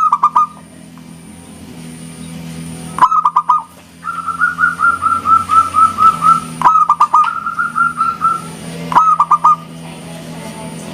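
Local zebra dove (perkutut) cooing: short phrases of a few clipped notes about every three seconds, with two longer runs of quick, even notes in between.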